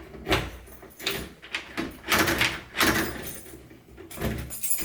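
Newly installed Master Lock door lockset being worked with its key: a series of metallic clicks, rattles and clunks as the key goes into the cylinder and the lock is turned.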